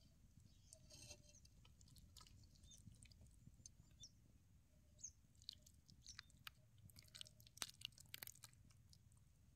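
Faint chewing and small scattered mouth clicks of someone eating crumbled bhakri soaked in aamti, more frequent in the second half.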